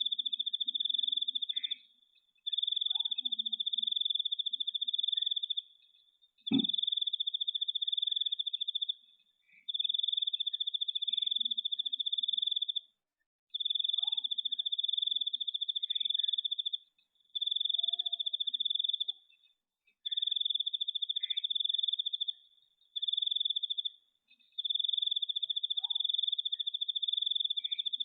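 A cricket trilling: one high, steady trill in long stretches of one to four seconds, broken by short pauses. There is a single sharp knock about six and a half seconds in.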